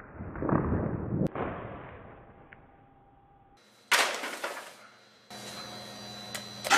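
Books and papers knocked out of someone's hands and falling onto a hard tiled floor: a dull burst of thuds and rustling, then a second sudden crash about four seconds in that fades over a second.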